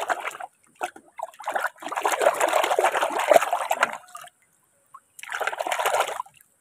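Soapy water splashing and sloshing in a metal basin as a hand scrubs a plastic toy dinosaur through it, in three bursts with short quiet gaps between.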